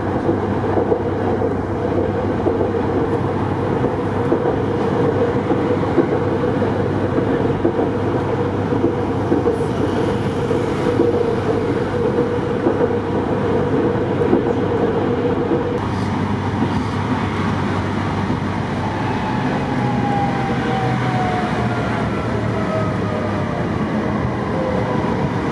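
Tatra tram running, heard from inside the car: a steady rumble and rattle of wheels on rail, which gets lighter about two-thirds of the way through. In the last several seconds a whine falls steadily in pitch as the tram slows for a stop.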